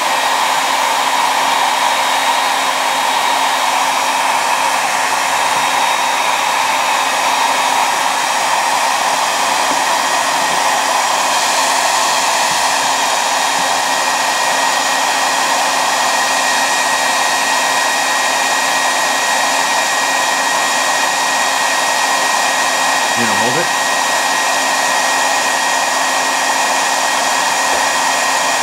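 Handheld hair dryer running steadily on its hot setting, blowing onto a 3D printer's extruder assembly to soften hardened PLA: an even rush of air with a thin steady high whine.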